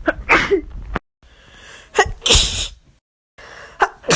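A woman sneezing three times, each a short vocal catch followed by a sharp explosive burst, with abrupt dead-silent gaps where separate sneeze clips are cut together.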